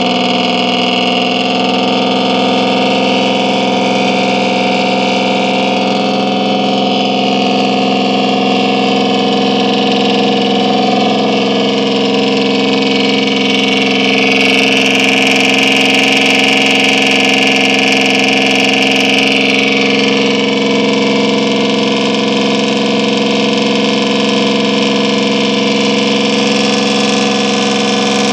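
River passenger boat's engine running steadily under way: an even, loud hum with a stronger hiss for several seconds in the middle.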